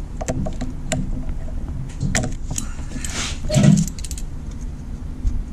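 Locking pliers clinking and clicking against a sheared bolt stub in a cast-iron engine block as they fail to grip, with a louder low thump about three and a half seconds in.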